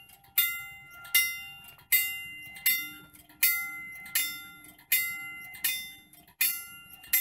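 Railroad wigwag crossing signal's bell ringing in an even, steady series of sharp strikes, a little over one a second, each ringing out and fading before the next: the signal has been activated and is warning of an approaching train.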